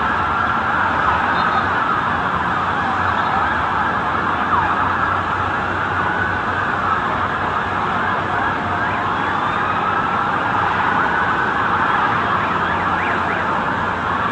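Several emergency-vehicle sirens sounding at once, their pitches rising and falling and crossing one another over steady street noise.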